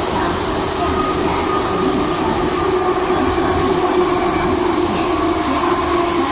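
MTR M-Train subway car running at speed through a tunnel, heard from inside the car: a steady rumble of wheels on rail with a faint steady whine over it.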